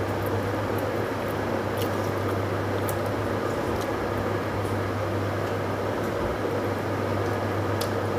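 A steady low mechanical hum, with a few faint sharp clicks as a man chews a mouthful of roti.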